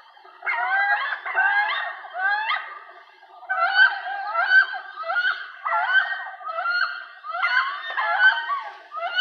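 Recorded wood duck calls played through a push-button sign's small speaker: a quick series of rising, squeaky calls with no depth, pausing briefly about three seconds in before carrying on.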